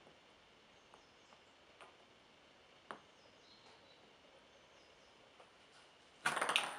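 A small rubber ball rolling across a wooden board: mostly quiet, with a few faint light clicks. A short, loud burst of rough noise comes near the end.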